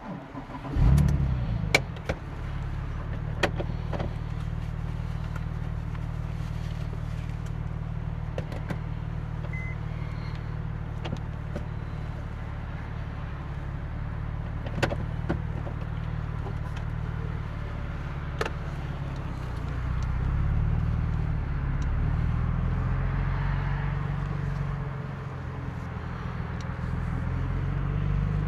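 Porsche 911 996 Turbo's twin-turbo flat-six starting about a second in, flaring briefly, then settling into a steady idle. The engine note swells gently past the middle and dips again, with a few sharp clicks over it.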